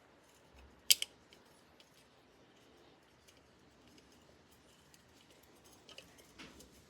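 Small parts being handled during a brake-rotor job: a sharp double click about a second in, then a few softer clicks and rustles near the end.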